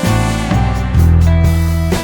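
Background music with guitar and a strong bass line.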